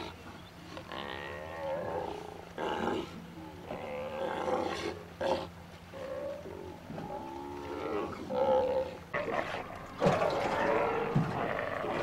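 Sea lions giving a series of short, rough growling roars, the calls coming closer together and louder over the last two seconds.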